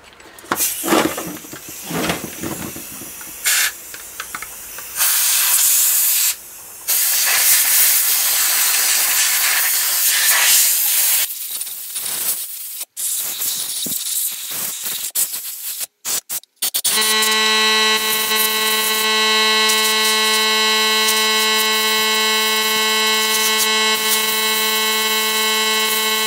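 Compressed-air blow gun blasting dust out of a cordless vacuum's filters and dust bin: short bursts of hiss at first, then long blasts. From about two-thirds of the way in the hiss runs on, with a steady humming tone under it.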